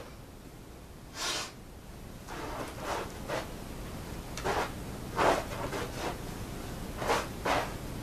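Shoes scuffing and grinding a pile of test debris (grit, cat litter, salt, tea leaves, small stones) into a carpet: a series of short, rough scuffs.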